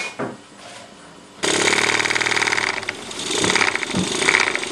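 Luton Bowman BM valveless marine steam engine running fast on live steam, a rapid, even mechanical beat as it belt-drives a small dynamo. It comes in suddenly about a second and a half in.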